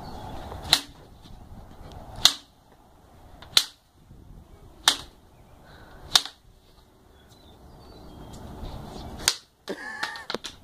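A Babolat Aero graphite tennis racket being smashed against concrete: six sharp cracks, spaced about one and a half seconds apart, with a longer gap before the last one.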